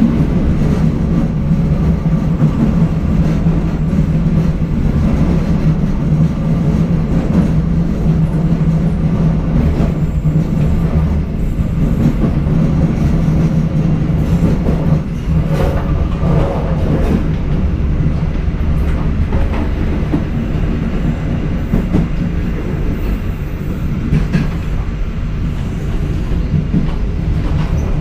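Passenger train running along the rails, heard from the back of the last carriage: a steady low drone with wheel-on-rail rumble, and a few rail clacks about halfway through.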